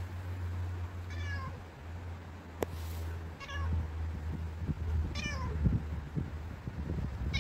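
Domestic cat meowing three times, short calls about two seconds apart, with a single sharp click between the first and second.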